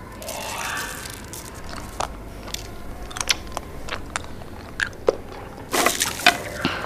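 A string of small crunches and clicks, as of a small child chewing something crunchy, with a denser flurry of crunches near the end.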